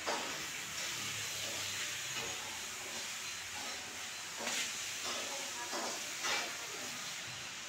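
Steady hiss with a few short knocks or scuffs: one at the very start and three more between about four and a half and six and a half seconds in.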